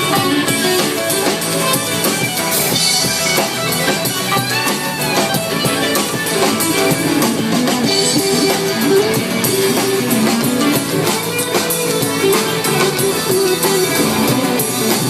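Rock band playing live without vocals: guitars carrying a melodic line over a drum kit.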